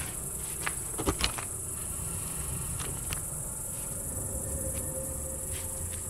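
Crickets chirping in a steady high-pitched trill, with a few sharp clicks and knocks in the first half, the loudest just after a second in.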